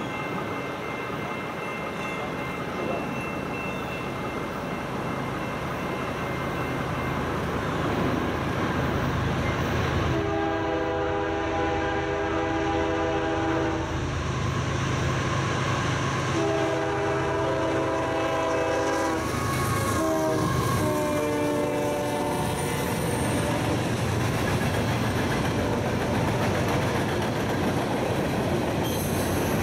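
Approaching CSX freight led by a GE ES44AH diesel locomotive, its air horn sounding long, long, short, long, the grade-crossing signal. Underneath, the rumble of the diesels and rolling cars builds steadily as the train draws near and its tank cars roll past.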